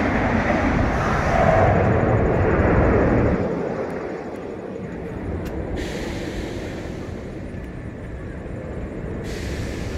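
Kingda Ka's hydraulic launch: a rushing roar as the train accelerates down the launch track for about three and a half seconds, then dropping away to a quieter rumble as the train climbs the tower.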